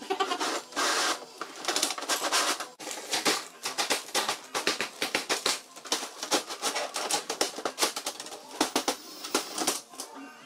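Corrugated galvanized steel sheet clattering and rattling as it is handled and pushed into place against the wall: a rapid, uneven string of sharp metallic clicks and knocks.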